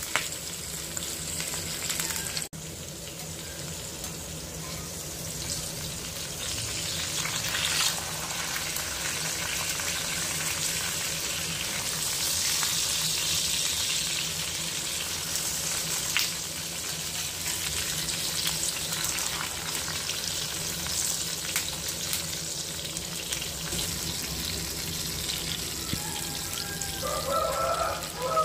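Oil sizzling steadily around banana-leaf-wrapped seer fish shallow-frying on a cast-iron griddle, with scattered crackles as the leaves splutter in the hot oil.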